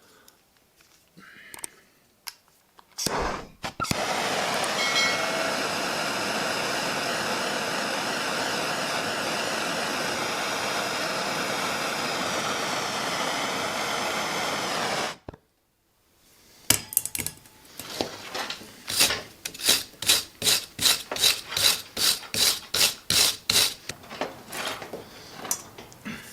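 A steady hiss of about eleven seconds starts a few seconds in and cuts off abruptly. Then comes a run of quick, even scrubbing strokes, about two or three a second, from a brush or abrasive cleaning the copper cable lug and cable end before soldering.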